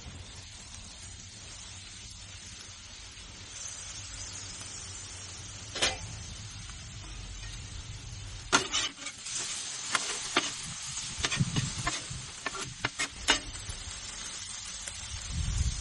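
Chicken pieces sizzling on a Blackstone flat-top griddle. There is a single metal clank about six seconds in, and then metal spatulas clack and scrape repeatedly on the griddle steel for several seconds.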